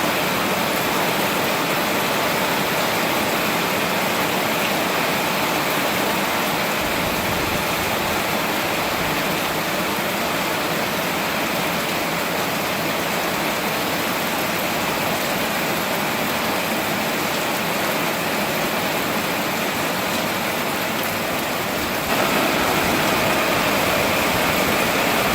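Heavy rain pouring down in a steady hiss, growing a little louder about three-quarters of the way through.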